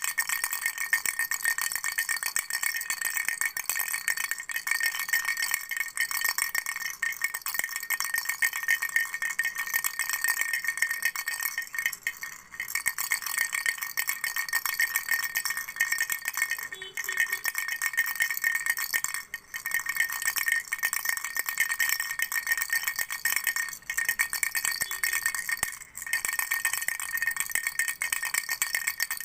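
A flower-shaped baby toy rattle being shaken rapidly and continuously, making a dense, high-pitched rattling that stops briefly a few times.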